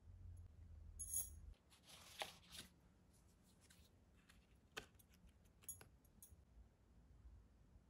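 Last cardboard jigsaw puzzle piece handled and pressed into its gap: a few soft clicks and taps of cardboard, with a brief rustle about two seconds in.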